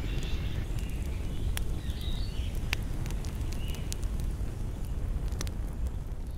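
Evening outdoor ambience by a forest lake: a steady low rumble with a few sharp clicks and faint chirps, beginning to fade out at the very end.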